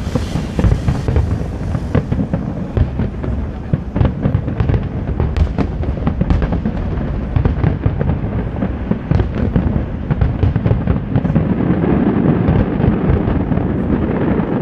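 Fireworks display going off in a dense, continuous barrage: many rapid bangs overlapping on a heavy low rumble, with no pause.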